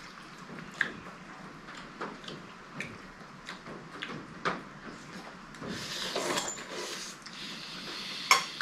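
Scattered light knocks and clicks of utensils and camping cookware, about one a second, with a stretch of rustling a little past halfway and one sharper knock near the end.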